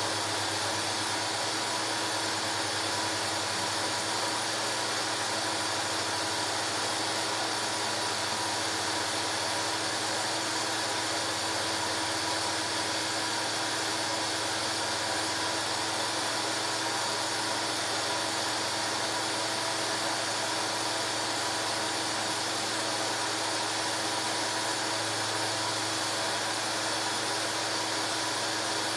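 Film projector running: a steady mechanical whirr with a constant hum, unchanged through the picture cut.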